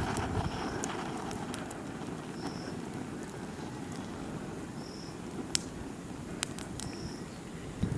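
Outdoor ambience with a steady low rumble, a short high chirp repeating about every two seconds, and a few sharp clicks about five and a half and six and a half seconds in.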